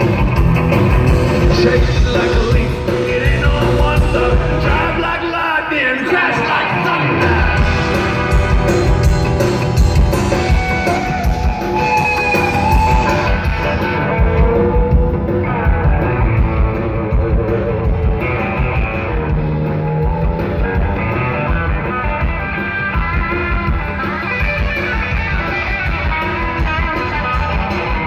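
Rockabilly band playing live: electric guitar, bass and drums with singing. The bass and drums drop out for a moment about five seconds in, under a sliding guitar line, and the cymbals fall back about halfway through.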